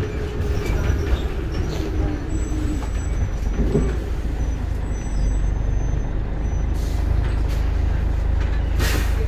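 Scania bus engine running with a steady low rumble and a faint whine that fades over the first couple of seconds. A short hiss of compressed air comes near the end, typical of the bus's air brakes.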